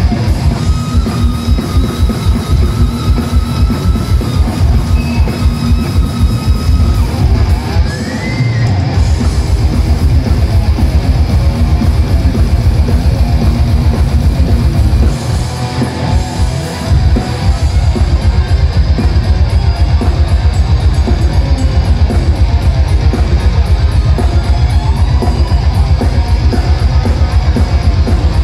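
Loud live thrash metal from a full band: distorted electric guitars, bass guitar and fast, driving drums. The band drops out briefly about 8 seconds in and again around 15 to 17 seconds in, then comes back in at full tilt.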